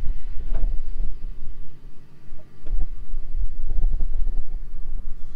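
Wind buffeting the microphone: a gusty, uneven low rumble. A couple of faint clicks come through, about half a second in and again near the middle.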